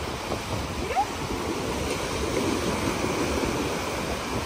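Sea surf breaking and washing up on a sandy beach, a steady rushing with wind on the microphone. A short rising squeak sounds about a second in.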